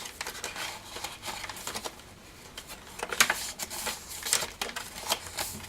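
Paper pages of a handmade junk journal being turned and handled: irregular dry rustling and small crackles, with a sharper flick of paper about three seconds in.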